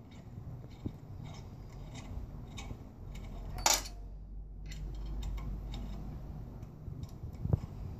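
Light metallic clicks and taps from hands fitting and adjusting the aluminium applicator attachment on a motorized film applicator, fingers working a small screw on its side. One louder, brief clatter comes about halfway through.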